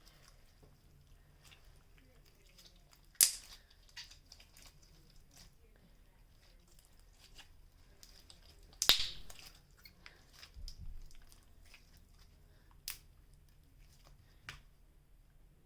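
Glitter slime being squeezed and worked in the hands: faint sticky crackling, with a few sharp pops, the loudest about nine seconds in.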